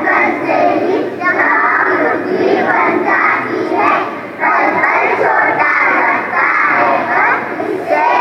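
A choir of schoolboys singing loudly in unison, many children's voices together, with a brief pause about four seconds in.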